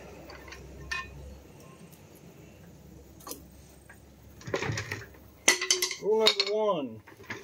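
Metal brake parts on a truck's front disc brake clinking and knocking as they are handled: a few sharp clicks spread out, a short scrape about four and a half seconds in, then a quick cluster of clinks. A man's voice sounds briefly near the end.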